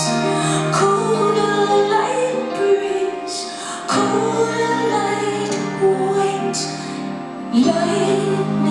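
Live music: a woman singing over sustained instrumental notes.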